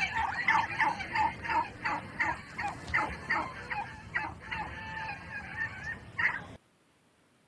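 Turkey calling: a quick run of short, repeated calls that cuts off suddenly about six and a half seconds in.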